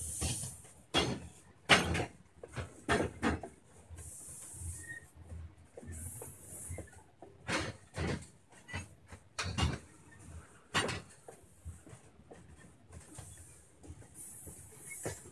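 Freight train tank cars rolling past, their wheels giving irregular clunks and knocks over the rail joints, with a few stretches of high hiss.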